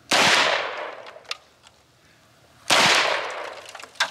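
Two 9mm shots from a CZ Scorpion Evo, about two and a half seconds apart, each followed by a long echoing tail.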